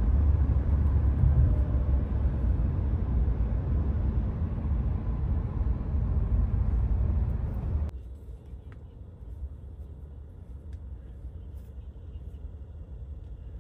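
Road noise inside a car's cabin at highway speed: a steady low rumble of tyres and engine. About eight seconds in it drops suddenly to a much quieter cabin hum with a few faint clicks, as the car moves slowly.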